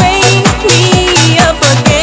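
Electronic dance-pop music: a steady thumping beat about twice a second under a bass line and a gliding melody.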